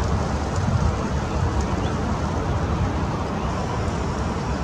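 Steady low outdoor rumble, with a faint short bird call about one and a half seconds in.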